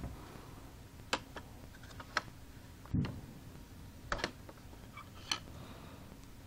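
A few scattered light clicks and taps from an HP 530 laptop's plastic casing and parts being handled, with one duller thump about three seconds in.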